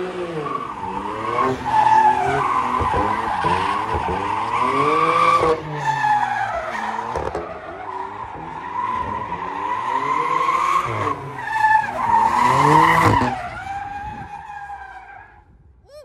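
BMW M2 drift car on a lap, its engine revving up and down again and again while the tyres squeal and skid; the sound fades away near the end.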